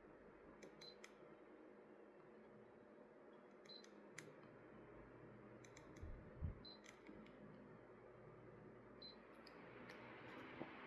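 Very faint, steady hum of a Hanil remote-control electric fan running, with scattered soft clicks and short high blips every few seconds and one low thump about two-thirds of the way through.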